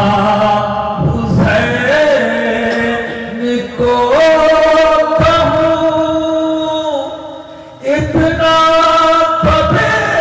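A man chanting devotional verse in long held notes, with short breaks for breath about four and eight seconds in.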